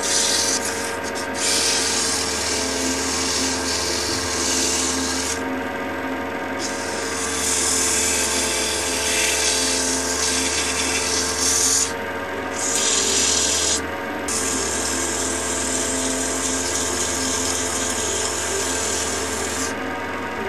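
Axminster wood lathe running steadily while abrasive paper is pressed against the spinning wooden candlestick, giving a loud hissing rasp over the motor's hum. The rasp breaks off and resumes a few times as the paper is lifted and reapplied.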